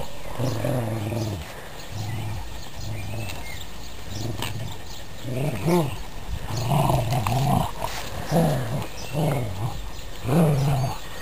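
Dogs growling in play, a string of low rumbling growls that swell and fade, several in a row.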